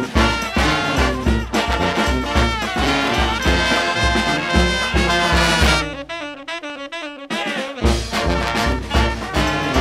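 Brass band music: horns playing a swing-style tune over a steady low beat. About six seconds in, the low beat drops out for a couple of seconds, leaving the horns alone, then the full band comes back in.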